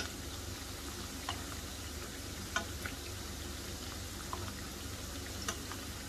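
Discs of khasta pori dough (flour and semolina) deep-frying in hot oil in a pan: a steady sizzle with a few brief clicks.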